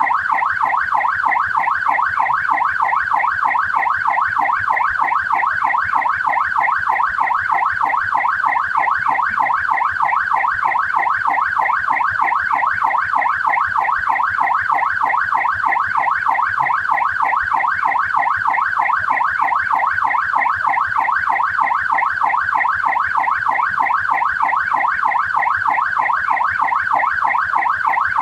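Australian police car siren sounding a fast yelp: a rapid rising-and-falling sweep repeated several times a second, loud and steady without a break.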